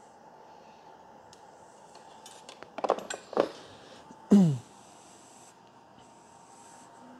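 A clear plastic storage box being lifted and moved on a wooden workbench: a cluster of clicks and rattles, then a short loud squeak falling in pitch a little over four seconds in, over a faint steady whine.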